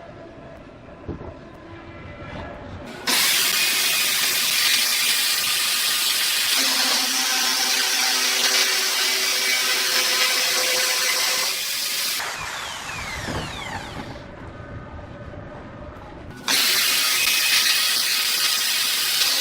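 Power drill driving a homemade tool attachment, working material in two loud runs. The first starts suddenly about three seconds in and ends with a falling whine as the motor winds down; the second starts suddenly about four seconds later.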